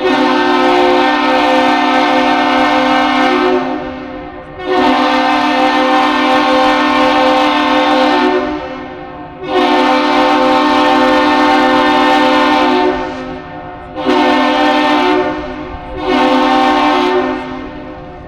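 Steam whistle of the laker steamer Alpena sounding a Master Salute: three long blasts followed by two short ones, each a full chord of several pitches.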